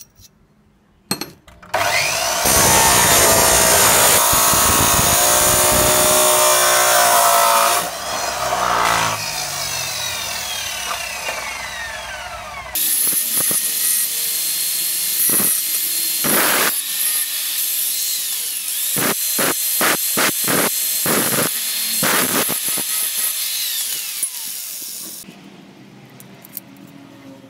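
An electric power tool working iron stock. A loud run drops about eight seconds in and winds down in a falling whine. A second spell of hissing cutting follows, with a string of sharp knocks, and stops near the end.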